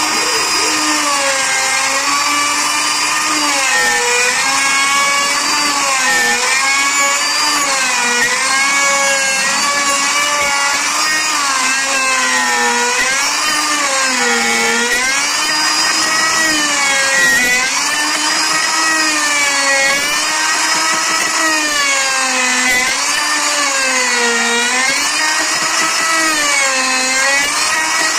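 Endico electric plunge router running under load as its bit cuts into a wooden beam. The motor's high whine keeps dipping in pitch and recovering, about every two seconds, as the bit bites into the wood.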